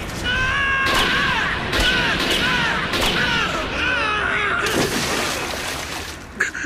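A man screaming without words, one long wavering yell, while a handgun fires several shots.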